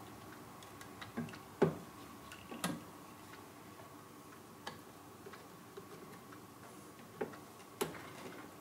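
Hand pop-rivet gun being worked, giving a scattering of sharp metal clicks as its handles are squeezed, about seven in all. The loudest comes about one and a half seconds in and another strong one near the end.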